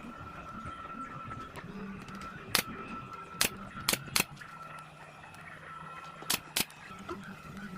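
Six sharp knocks at uneven spacing, in two clusters, over a faint steady hum.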